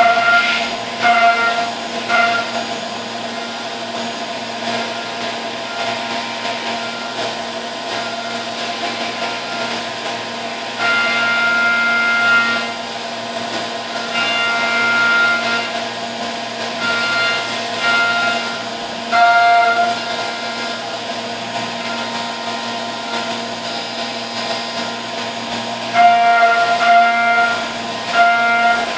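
Brother TC-S2Dn-O CNC mill's high-speed spindle driving a three-flute carbide endmill through 6061 aluminium under flood coolant: a steady high-pitched tone that swells louder for several stretches as the cutter moves through the cut, with coolant spray hissing.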